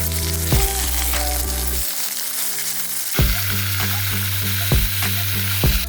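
Food sizzling and frying in a pan, the sizzle getting louder about three seconds in, under background music with a steady beat and bass line.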